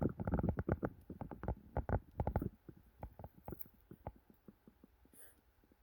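A puppy at its bowl of water, food and an ice cube, making a quick run of irregular clicks and clatters, dense for the first couple of seconds and then sparser and fainter.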